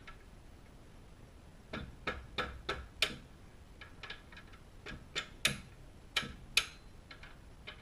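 About a dozen light, sharp metallic taps and clicks at an uneven pace, from tools and metal parts being worked on a sport bike's front wheel and axle during wheel removal.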